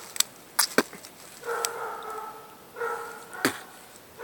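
An animal's short whining calls, repeated about once a second, with a few sharp clicks between them.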